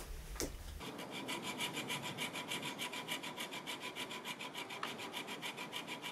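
A small hacksaw cutting through the plastic rear rim of a Canon EF-S 10-18mm lens in quick, even back-and-forth strokes, starting about a second in.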